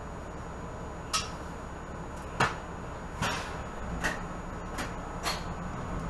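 Cabin of a 2018 Nova Bus LFS diesel bus: the engine runs with a steady low rumble while a series of sharp clicks and rattles, about six of them at uneven gaps, sound inside the bus.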